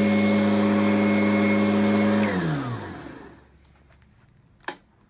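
Kirby Ultimate G Diamond Edition upright vacuum's motor running steadily on high speed with a strong whine. A little past two seconds in it is switched off and winds down, its pitch falling until it stops. A single sharp click comes near the end.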